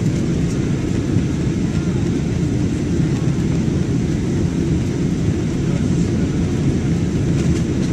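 Jet airliner's engine and airflow noise during takeoff: a steady low rumble that holds even throughout, with no rise or fall.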